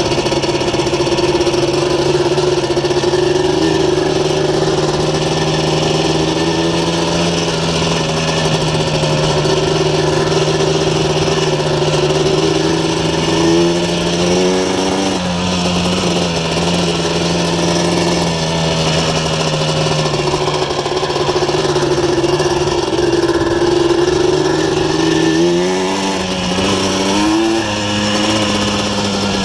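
Yamaha Blaster's 200cc single-cylinder two-stroke engine, with an aftermarket full exhaust, running under way at fairly steady revs. The pitch rises and steps back down as the throttle is worked about halfway through, and again twice near the end.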